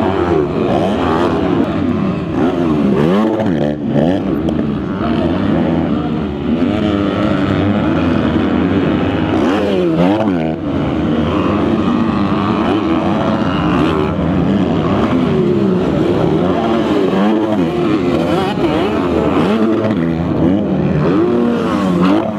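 Several motocross bikes racing, their engines revving hard and dropping off again and again, with more than one engine heard at once. The pitch climbs and falls over and over as the riders work the throttle through jumps and corners.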